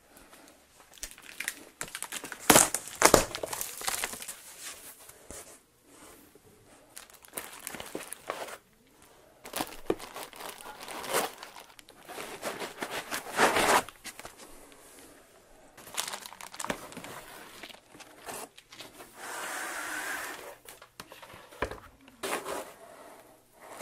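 A cardboard shipping box being unpacked: packing tape torn, cardboard flaps and foam inserts handled, and plastic bags of parts crinkling, in irregular rustles and scrapes with louder bursts about three seconds in and again near the middle.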